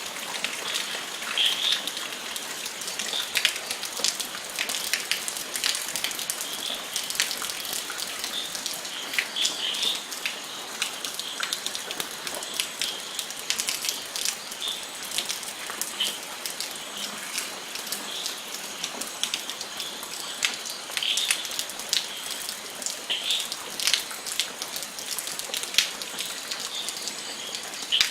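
Steady rain falling, a constant hiss scattered with many sharp clicks of single drops hitting a surface.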